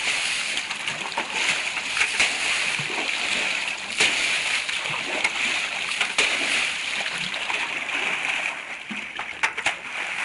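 Water spray hissing steadily and splattering onto wet grass and over a dog that jumps and bites at it, with sharp splashes every second or two.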